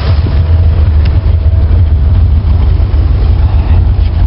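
Carburetted car engine idling steadily and loudly in park at about 800 rpm, its idle just turned back up after a vacuum leak was sealed.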